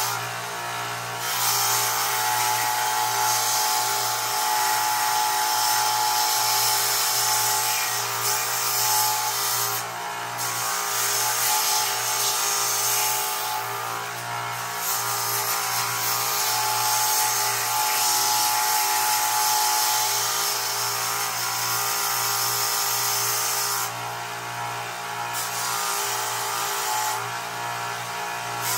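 Belt grinder running with a 40-grit zirconia belt, grinding a metal knife guard: a steady motor hum under a loud grinding hiss that briefly drops away a few times as the piece is lifted off the belt.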